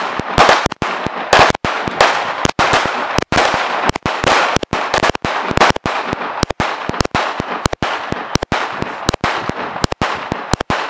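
Pistol fired in a long rapid string of sharp shots, a few a second, each with a short echo, at a wooden stake downrange.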